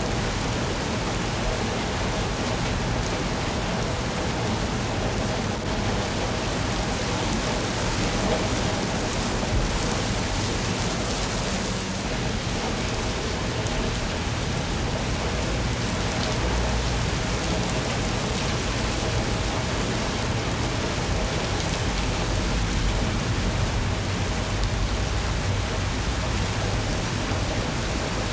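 Steady rain falling and pattering on surfaces, an even unbroken hiss, with a low rumble underneath that swells in places.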